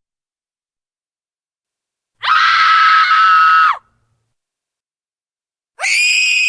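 Two high-pitched female screams, each held at a steady pitch for about a second and a half and dropping off at the end, with dead silence before and between them.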